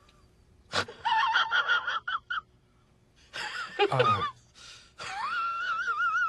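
A man's high-pitched non-speech vocal noises: a gasp, squeaky whining and a sliding-down groan, then a long high wavering wail from about five seconds in.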